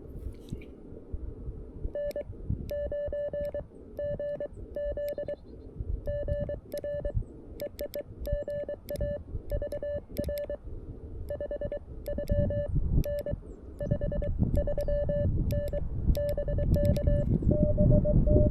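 Morse code sidetone from a CFT-1 CW transceiver: a steady tone keyed on and off in dots and dashes, sent by hand. Each keying stroke of the 3D-printed paddle key gives a sharp click. A low rumbling noise runs underneath and grows louder in the second half.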